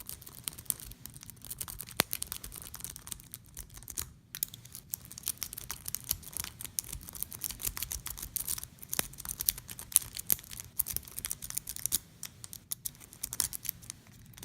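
Metal snake rake being jiggled in and out of a vintage Best padlock's pin-tumbler keyway: a fast, continuous run of light scraping clicks against the pins, with a sharper click about two seconds in and a short pause about four seconds in.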